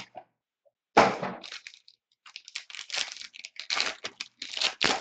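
A sharp crack from the cardboard trading card box about a second in, then a run of crinkling and tearing as a foil trading card pack is ripped open.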